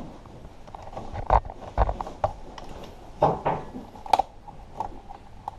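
Irregular knocks and clicks of hard parts being handled, with several sharper taps about a second apart, during the teardown of a plasma TV's cooling fan.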